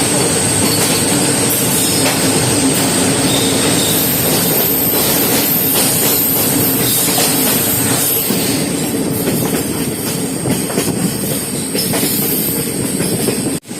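Passenger express train running on the rails, heard from on board: a steady loud rumble of the coaches with a high wheel squeal a few seconds in. The sound drops out briefly near the end.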